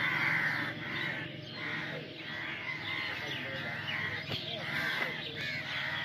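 A flock of crows cawing, many short calls overlapping.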